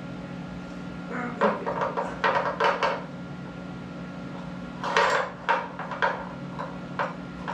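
Metal tools and parts clinking and clattering as they are handled, in two bouts of rattling, about a second in and again about five seconds in, over a steady machine hum.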